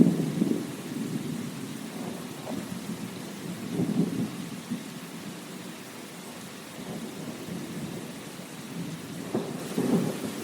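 Steady rain with low, rolling rumbles swelling up over it: one fading just after the start, another about four seconds in, and a third near the end.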